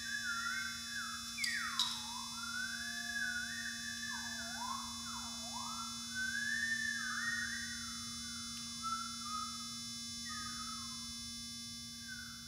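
Pure electronic tone from a small Arduino-driven speaker on a timpano head, sliding and wavering up and down in pitch in a string of smooth glides. It sounds over a steady low drone.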